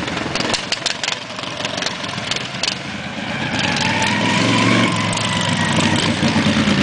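Modified racing lawn mower's engine running hard, louder over the second half with a whining tone rising slightly in pitch. A few sharp clicks sound in the first few seconds.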